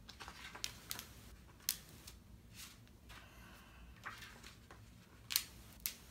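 Pages of a paper booklet being flipped through by hand: a run of short papery flicks and snaps, about seven in all, the loudest two near the end.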